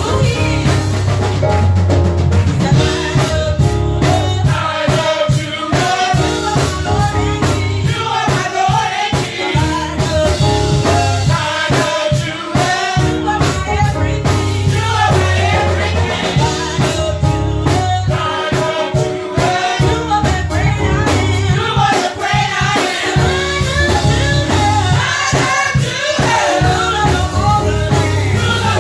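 Live gospel praise team singing, several voices together over a band with a drum kit keeping a steady beat.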